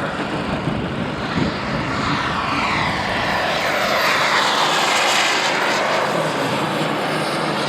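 Turbine-powered RC model jet flying past, its engine sound swelling and its pitch sliding down as it goes by.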